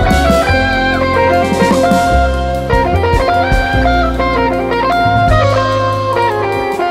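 Jazz band playing an instrumental tune: a guitar line to the fore among other melodic notes, over upright bass and drum kit with cymbals.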